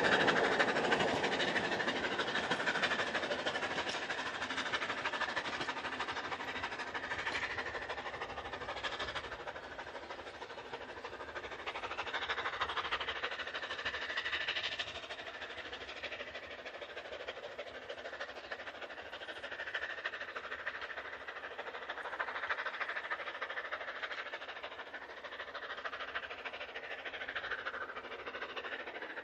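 Narrow-gauge steam train running away along the line, wheels clattering on the rails. It fades over the first several seconds, then carries on faintly and steadily.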